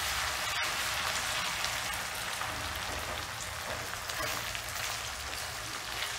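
Chopped onions, garlic, ginger and green chillies sizzling steadily in hot oil in a metal kadhai while being stirred with a spatula, a constant frying hiss with small crackles.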